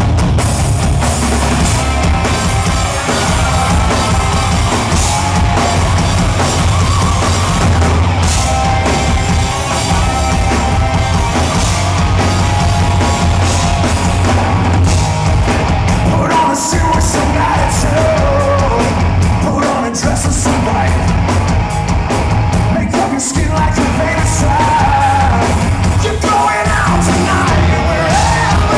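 Live rock band playing loud, with distorted electric guitars and a drum kit. A man sings over it, plainest in the second half.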